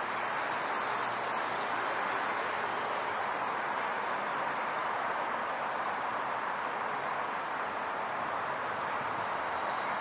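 Steady wash of city street traffic, an even rumble of passing cars with no single vehicle standing out.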